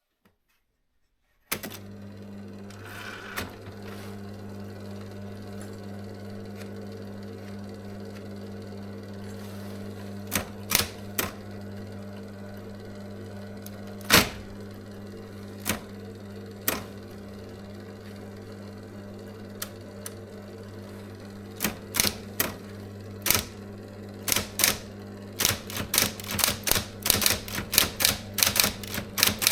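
SIGMA SM 7800 K electric typewriter switching on about a second and a half in, its motor then humming steadily. Over the hum come a few single, widely spaced key strikes, and over the last several seconds typing picks up into a quick run of sharp type-bar strikes.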